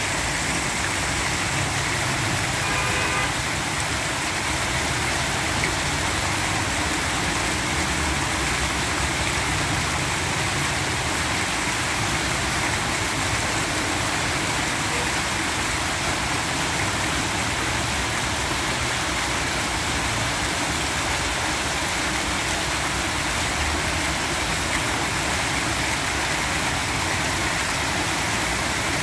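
Fountain water splashing steadily: jets falling back into the basin and water running down a tiered stone fountain, with a low rumble underneath. A brief faint high tone sounds about three seconds in.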